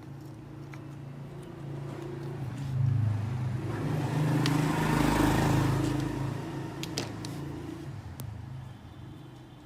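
A low engine hum that swells to its loudest midway and fades away again, with a few light clicks.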